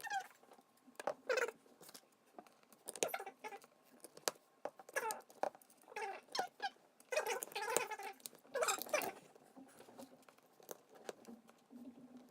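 High-pitched, sped-up voices chattering in short squeaky bursts, with scattered light clicks.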